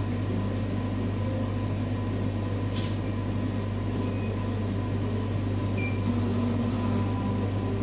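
Steady low hum of a Cornley K-Lite electrolyte analyzer running its 'Calibrate B' cycle, with a single click about three seconds in. Near six seconds a brief high beep sounds as the calibration finishes, followed by a short hiss.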